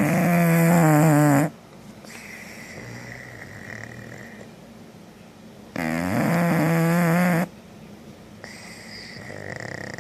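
Bulldog snoring: two loud snores about six seconds apart, each about a second and a half long, with softer breathing and a faint high whistle between them.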